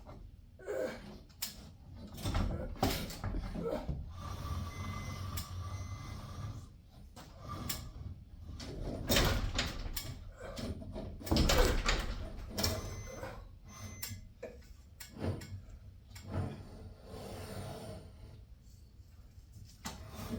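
Irregular metallic knocks, clanks and scraping as garage door torsion spring hardware is handled and fitted by hand.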